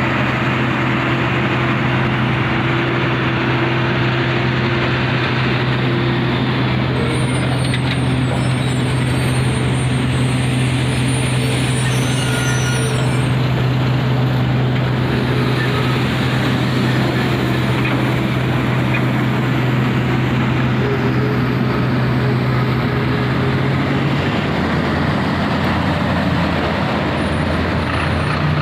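Heavy diesel machinery, an excavator and a tipper truck, running steadily during loading, with a thin high squeal for a few seconds near the middle. The engine note shifts a few seconds before the end.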